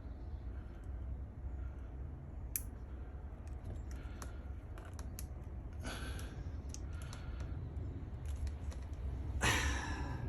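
Scattered small clicks and brief rustling scrapes from handling the small connector pins and plastic connector with small pliers, over a steady low hum. One sharper click comes about two and a half seconds in.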